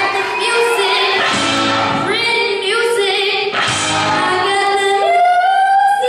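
A young girl singing solo into a handheld microphone over instrumental accompaniment, holding notes with vibrato. About five seconds in she slides up into a long held high note, the loudest part.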